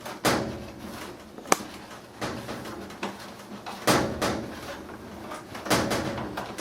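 Knocks, scrapes and clatter of dryer parts being handled during a belt repair, with a sharp click about one and a half seconds in and heavier knocks near the middle and toward the end.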